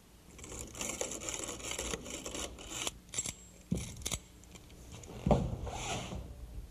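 A hand screwdriver driving screws through a brass strike plate into a wooden door jamb, a scratchy grinding of screw into wood. Then come a few sharp knocks, and about five seconds in a louder knock of the interior door shutting as its latch snaps into the strike plate.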